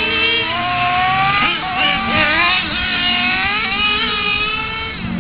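Remote-control model cars' motors running. Several whining tones overlap, each climbing slowly in pitch as a car accelerates, then dropping and climbing again, so more than one car is being driven at once.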